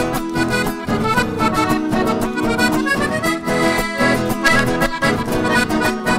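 Live cumbia paisana played by a trio: a piano accordion carries the melody over two acoustic guitars strumming a steady, regular dance rhythm.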